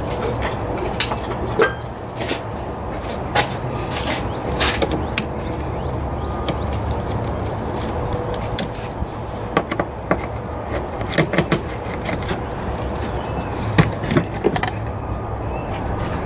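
Irregular clicks and knocks of hand tools and parts being handled while the throttle body is taken off the engine, over a steady low hum.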